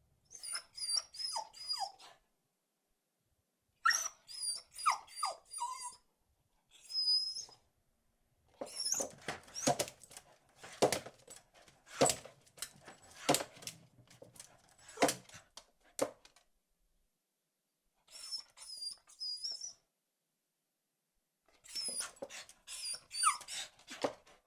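Beagle barking in bursts of several quick barks, separated by short silent gaps. The longest unbroken run of barking lasts about eight seconds in the middle.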